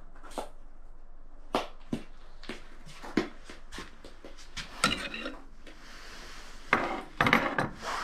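Handling noise from someone moving about a wooden deck and table: scattered knocks, taps and rustles, a few seconds apart, with a louder cluster of knocks and rustling near the end as a hand reaches for a phone on the table.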